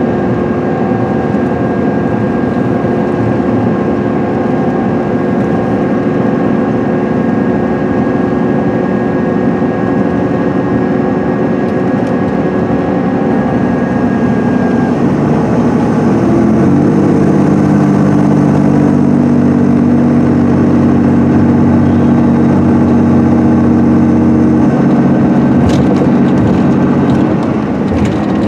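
Interior sound of a 2010 MCI D4500CL coach at highway speed: its Cummins ISM straight-six diesel running steadily over tyre and road noise, with a thin high whine in the first half. About halfway through, the engine note grows louder and deeper, then eases just before the end.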